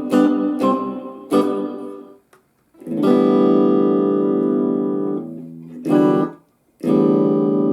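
Guitar chords strummed: three short strums that die away quickly, then longer chords left to ring.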